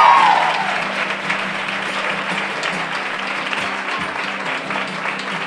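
Audience applauding while an acoustic guitar keeps playing underneath; a held sung note fades out in the first moment.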